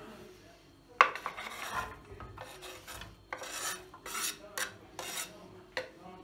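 Kitchen knife blade scraping chopped onion off a wooden cutting board into a grill pan in several short strokes, after a sharp knock about a second in.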